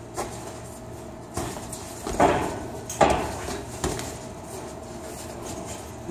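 Boxing gloves landing punches in sparring: a handful of padded smacks, the two loudest about two and three seconds in.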